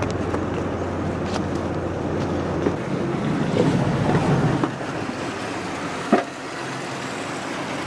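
Trawler yacht under way: wind on the microphone and water rushing along the hull, with a single sharp knock about six seconds in.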